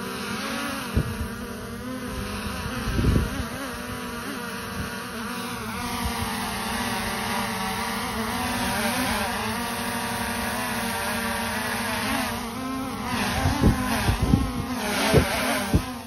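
DJI Air 2S quadcopter on its stock propellers, hovering close by: a steady buzzing whine of several tones whose pitch wavers as the motors adjust speed. Low rumbling gusts of air buffet the microphone, heaviest near the end.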